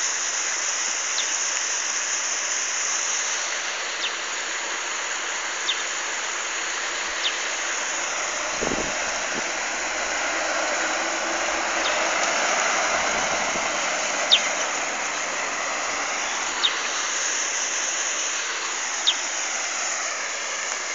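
Steady outdoor hiss with a short, sharp high chirp every couple of seconds and a brief swell in the hiss midway.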